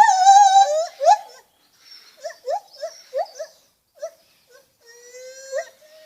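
Lar gibbon calling: a loud hoot with a wavering pitch in the first second, then a quieter run of short, quick rising whoops, and a long low note sliding upward near the end.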